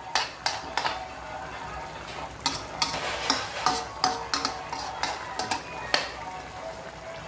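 Black spatula stirring a simmering chicken stew in a metal wok, knocking and scraping against the pan in about a dozen irregular clinks, some ringing briefly.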